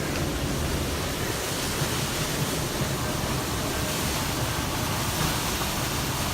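Small waterfall, water falling and splashing in a steady rush.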